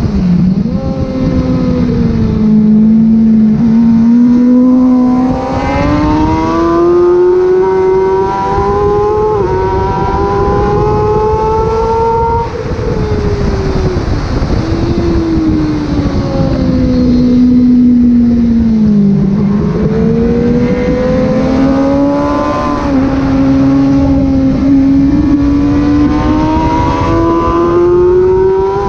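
Kawasaki ZX-636 inline-four sportbike engine at full pace on track, its freshly rebuilt and run-in engine pulling hard. The engine note climbs steadily through long pulls, and the pitch drops back sharply several times under gear changes and braking.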